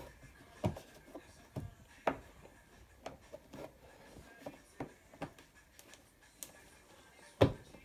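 Irregular clicks and light knocks of hands fitting a screw into an ATV's plastic fairing panel, with one sharper knock near the end.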